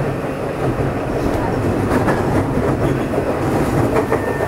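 Tokyo Metro 03 series commuter train running, heard from on board: a steady rumble with wheels clicking over rail joints.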